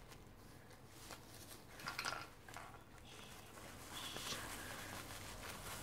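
Faint rustling and crinkling of plastic bubble wrap as it is pulled off a ball-jointed doll by hand, in a few short scrunches.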